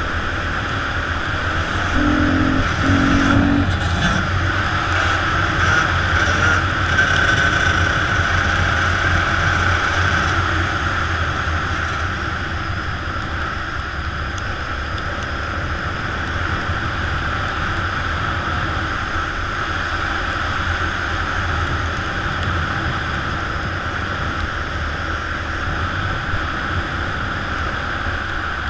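Enduro motorcycle engine running at speed under load, louder for several seconds near the start and then holding steady.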